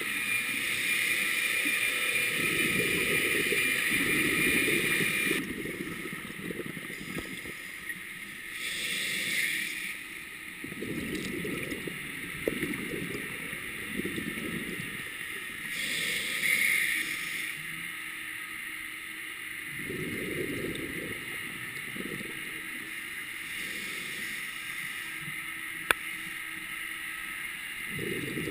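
Scuba diver breathing underwater through a regulator: bursts of exhaled bubbles rumbling every few seconds, with a hiss at times. There is a single sharp click near the end.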